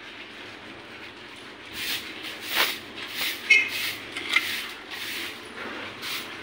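A steel mason's trowel scraping and spreading wet cement mortar over a rock-and-cement surface: a run of about six short scraping strokes in the middle, a couple of them with a faint metallic ring.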